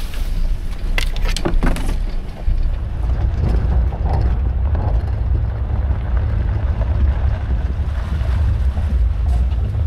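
Steady low rumble of the Lexus GX460 SUV driving, road and engine noise, with a few light clicks about a second in.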